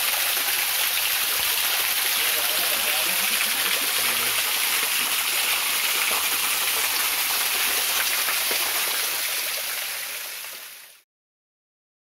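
Small waterfall, close by: water falling and splashing down a rock face in a steady rushing hiss, fading out near the end.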